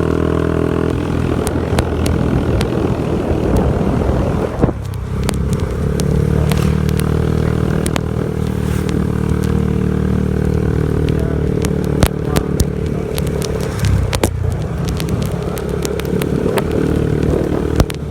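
Motorcycle engine running steadily while riding. Its note dips and shifts a little under five seconds in and again near fourteen seconds, with scattered short clicks and crackles.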